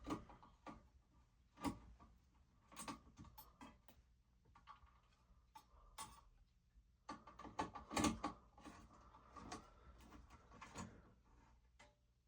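Faint, scattered clicks, clinks and handling knocks as the blades and their mounting screws are worked off a 1994 Concord ceiling fan.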